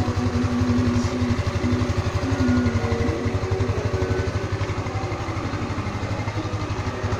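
Motorstar Easyride 150 R2 scooter's single-cylinder 150 cc engine idling with a steady, even pulse and no revving.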